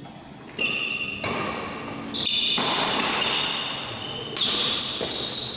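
Badminton rally on an indoor court: sharp racket hits on the shuttlecock, with high squeaks of players' shoes on the court floor starting suddenly several times.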